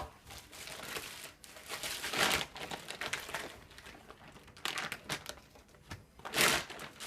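Crinkling and rustling of mattress packaging being handled, coming and going irregularly, with louder bursts about two seconds in, near five seconds and near the end.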